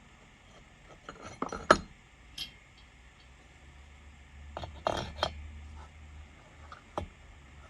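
Small metal tools clinking and knocking as they are handled and set down, in scattered sharp clinks: a cluster a little under two seconds in, another around five seconds in, and a single one near the end.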